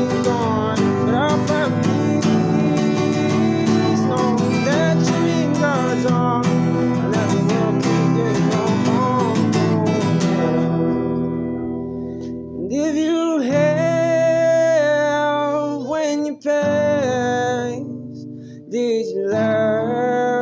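Acoustic guitar music from a country-style song: strummed and picked guitar with bending notes. About twelve seconds in it thins out to a sparser passage of held, bending tones broken by short pauses.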